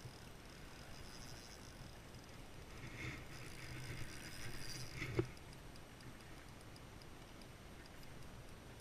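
Spinning reel being wound, a faint whirring with light ticking that swells and ends in a sharp click about five seconds in. After the click a faint, regular ticking goes on, about three to four ticks a second.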